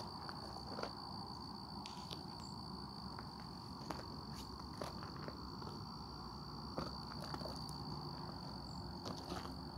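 Insects trilling steadily in one high, unbroken note over a low rumble, with a few faint clicks.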